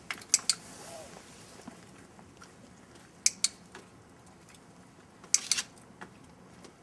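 Dog-training clicker clicked three times, each a quick double click as it is pressed and released, marking the dog's nose touch on the target.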